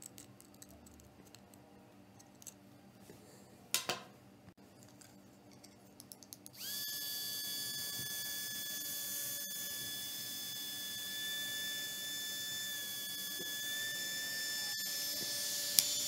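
Light plastic handling clicks, then about six and a half seconds in a blö micro cooling fan switches on and runs steadily. Its small motor gives a high-pitched whine of several steady tones over an airy hiss.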